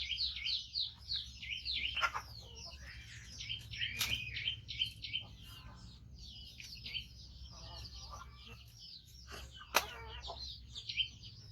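Baby monkey giving rapid, high-pitched squeaking calls, each a short falling squeak, several a second: a fast run at the start, scattered calls through the middle, and another fast run near the end. Loud, insistent calling while waiting to be fed.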